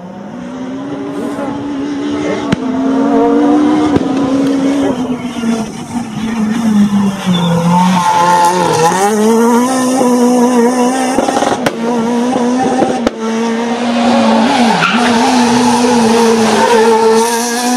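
Renault Clio rally car's engine driven hard, its note climbing as it revs and dropping back at each gear change and lift, with a few sharp cracks.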